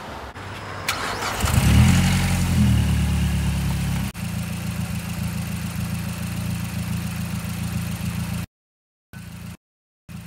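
2012 Mazdaspeed3's turbocharged 2.3-litre four-cylinder engine starting: a short crank about a second in, catching with a flare of revs, then dropping to a steady idle about four seconds in. The sound cuts out to silence twice, briefly, near the end.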